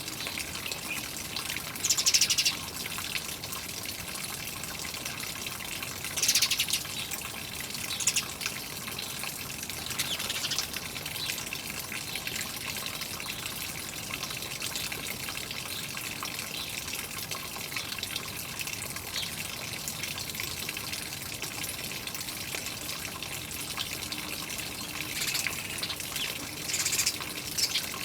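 Water trickling steadily, with birds chirping in short bursts every few seconds.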